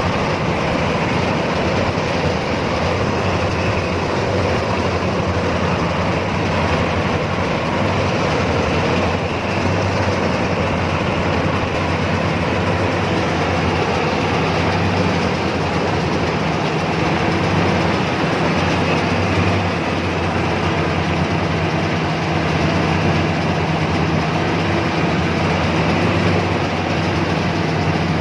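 Rice combine harvester running steadily under load, its engine humming at a constant pitch beneath a dense mechanical clatter.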